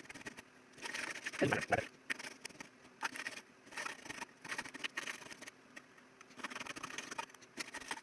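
Hand file rasping in repeated strokes on a sterling silver chain, evening out its sides, with two heavier knocks about a second and a half in.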